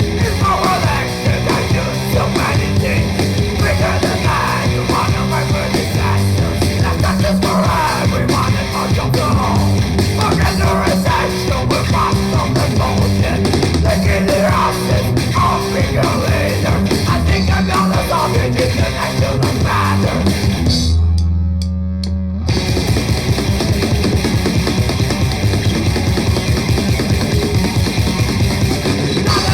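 Raw, noisy old-school grindcore: fast drums with distorted guitars and bass at full tilt. About three quarters of the way in, the band drops out for a second or two, leaving only a low held note, then crashes back in.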